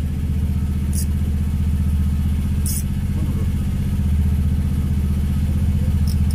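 An engine running steadily with an even low hum, with three brief high clicks about one, three and six seconds in.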